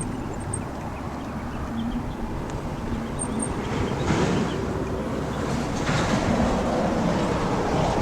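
Road traffic: a continuous low engine rumble, with vehicles passing and swelling louder about four seconds in and again about six seconds in.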